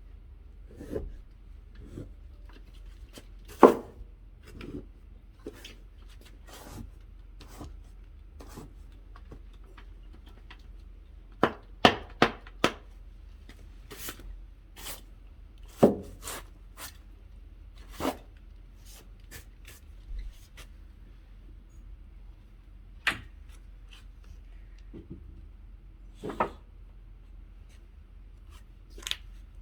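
Irregular clicks and knocks with some rubbing, like objects being handled, a few much louder than the rest, the loudest about three and a half seconds in and a cluster around twelve seconds.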